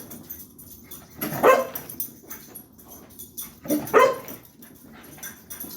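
Puppy giving two short, loud barks, about a second and a half in and again about four seconds in, with softer sounds between. Her owner takes the barking for anger at him going quiet.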